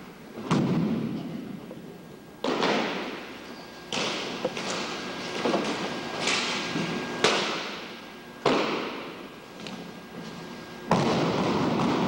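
Drill rifles handled in a silent precision drill give about eight sharp cracks, irregularly a second or so apart, each ringing out in a gymnasium's echo. Near the end the cracks give way to a sudden, steady burst of spectators' applause.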